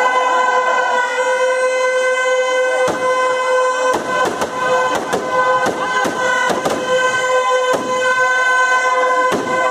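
Firecrackers packed into a burning Ravan effigy bursting in an irregular string of about ten sharp bangs, starting about three seconds in. Under them runs a steady, high-pitched droning tone.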